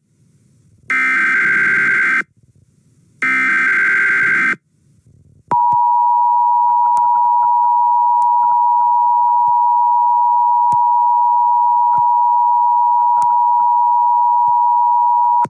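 Emergency Alert System tones: two harsh, buzzing digital header bursts about a second long each, then a loud, steady two-tone attention signal (853 and 960 Hz) that starts about five seconds in and holds unbroken for about ten seconds.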